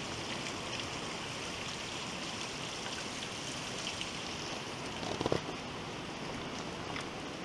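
Steady rush of flowing water, with a brief short sound about five seconds in.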